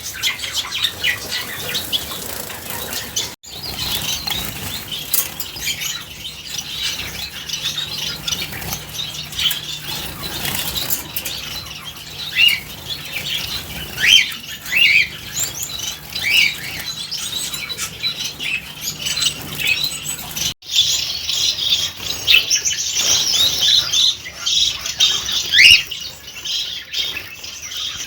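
Gouldian finches and Bengalese finches bathing: wings fluttering and splashing in water, with many short, high chirps throughout. The sound drops out for an instant twice, about three seconds in and about twenty seconds in.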